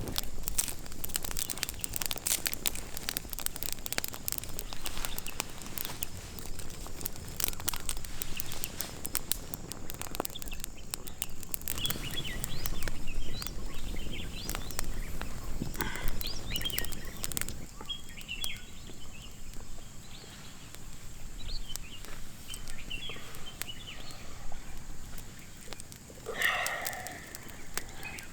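Forest birds chirping in short high calls, joined by a louder call near the end, over many sharp crackles and clicks.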